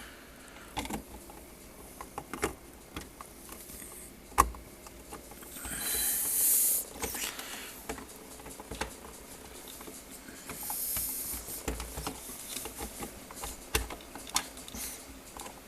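Hard plastic clicking, tapping and rubbing as a replacement plastic dispenser cover is worked into the refrigerator's water dispenser housing, with a sharper click about four seconds in and two short stretches of hissy rubbing.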